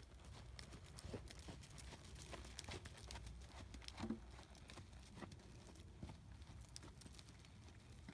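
Faint hoofbeats of a paint horse trotting on arena sand over ground poles, in an irregular run of soft knocks. One louder knock comes about four seconds in.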